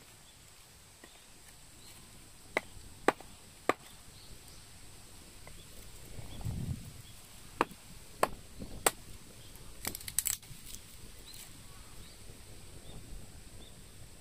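Sharp knocks, as of wood struck, in two runs of three about half a second apart, then a short cluster. They stand out over faint outdoor background noise.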